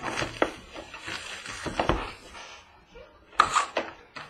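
Cardboard trading-card boxes and pack wrappers being handled: irregular rustling, crinkling and light taps. A sharper burst of rustling and knocking comes a little after three seconds in.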